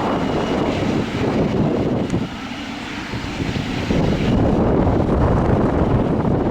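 Boeing 777-300ER's GE90 turbofan engines at takeoff power, a loud, steady rush of jet noise. About two seconds in it drops for under two seconds, then comes back a little louder.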